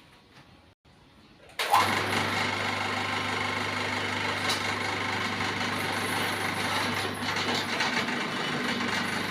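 Horizontal sawmill machine running: after a quiet start, a loud steady mechanical noise with a constant low hum begins abruptly about a second and a half in and carries on evenly.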